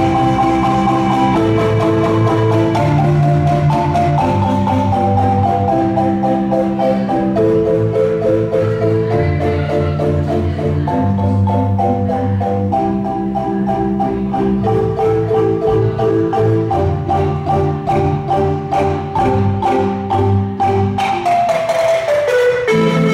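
Ensemble of wooden marimbas, including a bass marimba, playing fast, interlocking repeating patterns, with many mallet strokes in a steady rhythm and low bass notes under higher melody lines.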